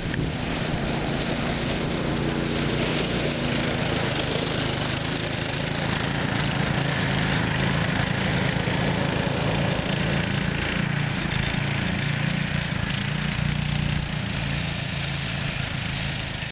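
Go-kart's small engine running at a steady speed, its pitch wavering a little in the second half.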